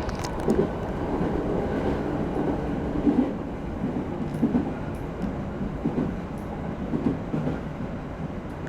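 E217 series electric train running on the rails: a steady wheel rumble with irregular clacks as the wheels pass over rail joints, easing slightly toward the end.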